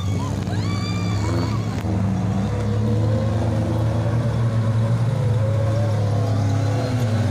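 Off-road jeep engine running steadily at low revs while wading through a river, a constant low drone. A short call from a person comes about a second in.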